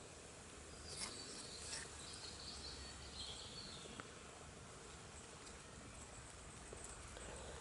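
Faint woodland ambience: a low steady hiss with a few high chirps from distant birds in the first half.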